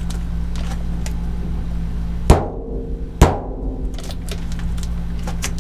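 Two hard hammer strikes on a punch against the steel side wall of a Sprinter van, about a second apart, each leaving a short metallic ring, marking the spot to drill for a water inlet. A steady low hum runs underneath.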